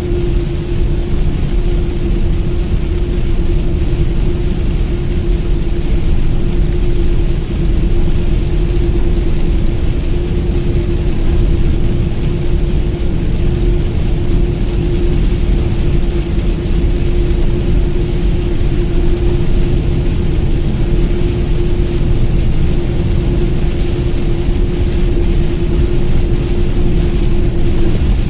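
Truck on the move, heard from inside: steady engine and road rumble with a constant whine.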